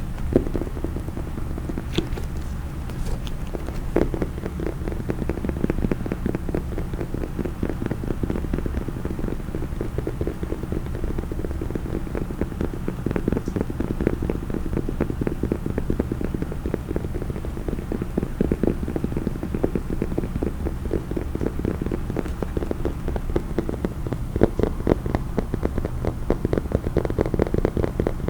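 Fast, continuous tapping and scratching on a case, a dense run of quick clicks with a few sharper taps standing out.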